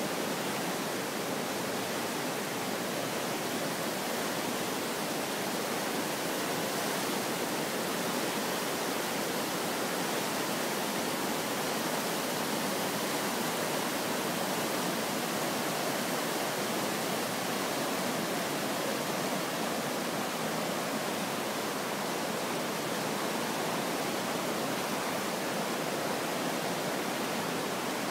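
River in flood: fast, muddy water rushing past in a steady, unbroken roar.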